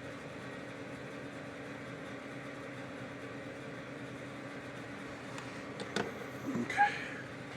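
Steady mechanical hum, like a fan or blower running, with a few sharp clicks and small handling taps about six to seven seconds in.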